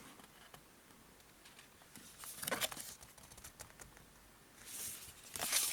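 Paper and cardboard knife packaging being handled: scattered small clicks and soft rustles, with a louder rustle near the end.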